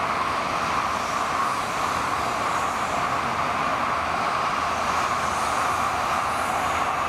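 Sanyo Shinkansen N700A 16-car train passing at speed, a steady rushing roar that drops slightly in pitch about five seconds in.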